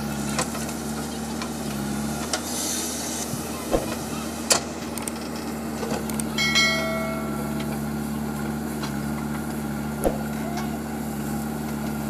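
JCB 3DX backhoe loader's diesel engine running steadily while the rear bucket digs soil and loads it into a lorry, with a few sharp knocks from the bucket and arm. A short electronic chime sounds about six and a half seconds in.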